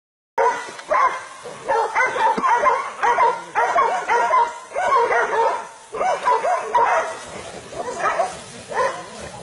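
Hunting dogs barking one call after another, almost without a break, as they bay a wild boar they have cornered.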